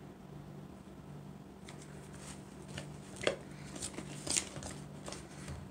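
Hands and a plastic measuring spoon working sticky glitter-glue slime in a plastic mixing bowl. Small irregular clicks and soft squelchy taps start a couple of seconds in, over a faint steady low hum.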